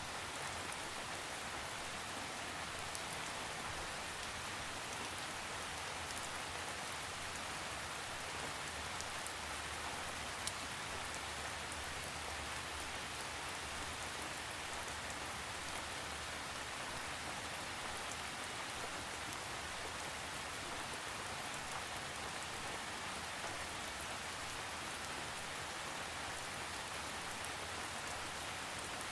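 Steady rain falling, an even hiss with faint scattered drop ticks and no thunder.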